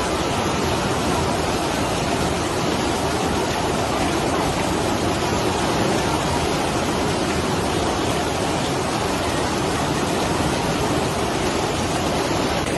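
The Ganges in flood, its swollen, fast-flowing water making a steady, unbroken rushing noise.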